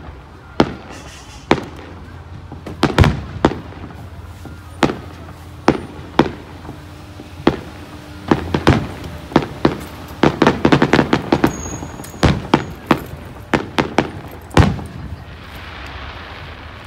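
Aerial firework shells bursting overhead in irregular succession, a dozen or more sharp bangs. A quick run of crackling pops comes in the middle, and a soft hiss near the end.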